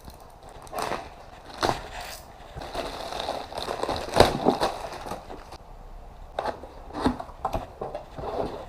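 Packaging being handled and opened: rustling and crinkling with a string of sharp knocks and clicks, busiest in the middle.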